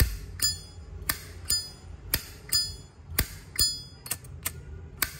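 Zippo lighter's lid being flicked open and snapped shut again and again: about eleven sharp metallic clicks with a short bright ring, coming in pairs roughly once a second.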